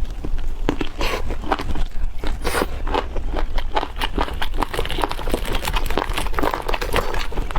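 Close-miked chewing and biting into chicken: a dense, uneven run of small crunching clicks.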